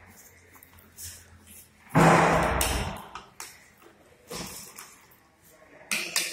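Straps being pulled through and fastened on a plastic spine board. There is a loud, noisy scrape about two seconds in that lasts about a second, and a few lighter knocks and clicks.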